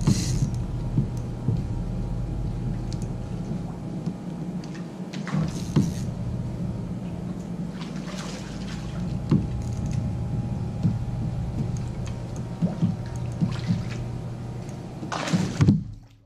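Water splashing and sloshing around a kayak while a small bass is played and reeled in on a light rod, with scattered knocks and splashes over a steady low rumble. The sound cuts off abruptly near the end.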